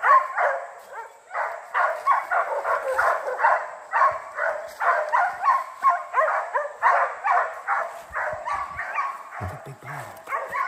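Laika hunting dogs barking rapidly and without let-up, about three barks a second, thin-sounding with no low end: bay barking at game they have treed.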